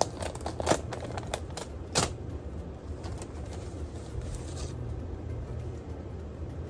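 Paper crinkling and rustling as a folded note is opened, with a run of sharp crackles in the first two seconds, then softer rustling, over a low steady hum.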